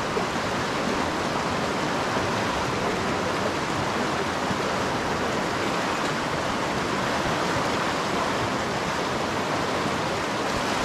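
Fast-flowing river rushing steadily over a shallow, rocky bank: a constant, even wash of water.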